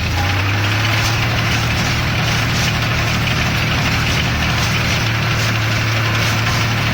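Welger AP45 small square baler running behind its tractor: a steady engine drone with a faint regular clatter from the baler's mechanism. The engine note steps up slightly at the start.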